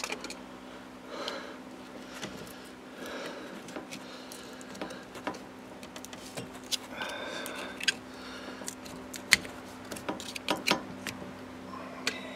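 Scattered sharp clicks and light knocks of hand tools working metal hose clamps on heater hoses, over a steady low hum.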